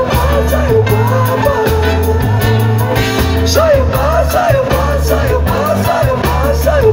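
Live band playing an instrumental passage with no lead vocal: a bass line pulses in even steps under a bending melodic line, with guitar, keyboard, horns and drums on stage.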